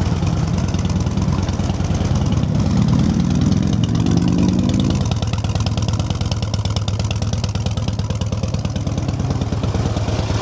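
2007 Harley-Davidson Ultra Classic's V-twin running through Screaming Eagle mufflers on a true dual exhaust. It idles, is revved once about two seconds in with the pitch climbing for around three seconds, then drops back to a steady idle. The owner judges the engine and mufflers to sound good.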